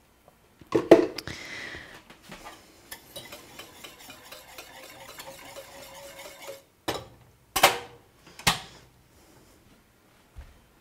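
A spoon stirring golden milk in a stainless steel saucepan on the stove, scraping and ticking against the pan, after a clatter about a second in. Then two sharp clanks as the saucepan is lifted off the burner.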